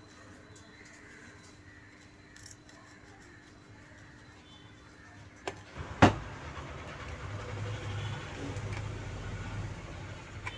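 A click and then a sharp knock about six seconds in, followed by a steady low blowing sound, as of a hot-air rework station switched on to desolder a surface-mount IC from a circuit board.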